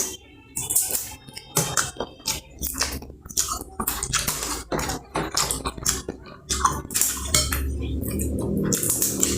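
Spoon clinking and scraping against a plate in irregular strokes while eating.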